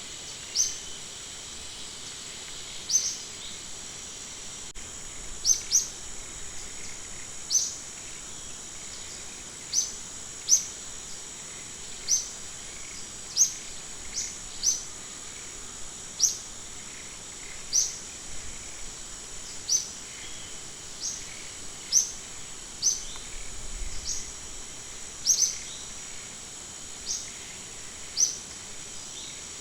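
Short, sharp high-pitched chirps from an animal, one every second or two, each a quick upward glide, over a steady high drone of insects.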